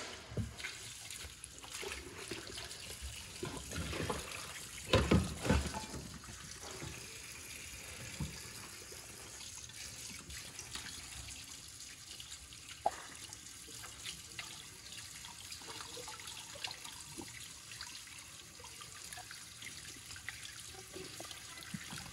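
Kitchen tap running into a sink while blanched beef is rinsed by hand, with a few knocks and clatters about five seconds in.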